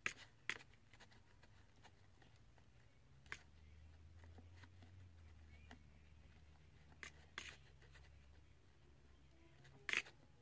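Wooden craft stick stirring and scraping glue slime in a plastic bowl: faint scraping with a few sharp taps and clicks, the loudest near the start and near the end, over a low steady hum.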